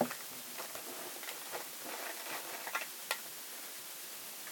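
Light, scattered clicks and taps of a plastic Dragon Ball Z Saiyan Scouter toy being handled and fitted, with one sharper click about three seconds in.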